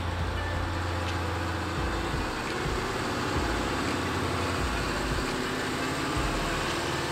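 Mercedes-Benz Unimog truck's diesel engine running at low revs as the truck creeps forward, a steady low drone.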